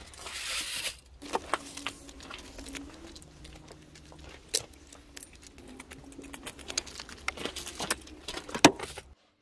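Handling noise: a rustle of plastic, then scattered clicks and light knocks of hard computer parts being moved about, with a sharp knock near the end.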